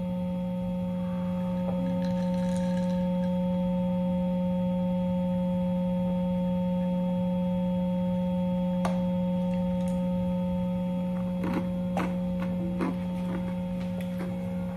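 Steady hum from an EVH 5150 guitar combo amplifier left on with the guitar plugged in and not being played: a low hum with a couple of fainter, higher steady tones over it. A few faint clicks of string and handling noise come through the amp near the end.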